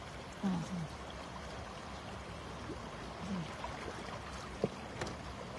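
Shallow stream water running and sloshing around a plastic basket trap as a hand gropes inside it for a trapped fish.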